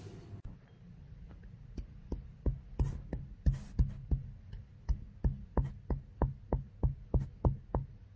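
Stone pestle pounding whole spices, star anise among them, in a granite mortar: a steady run of sharp knocks, about three a second, starting about two seconds in and going on to near the end.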